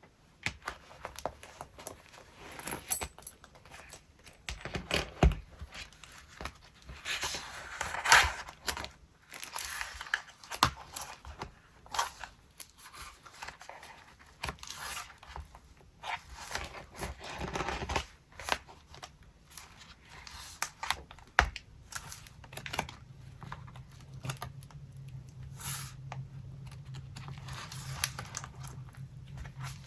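Paper being handled, rustled and torn, with scattered sharp clicks and taps of collage materials. About two-thirds of the way through, a low steady hum sets in underneath.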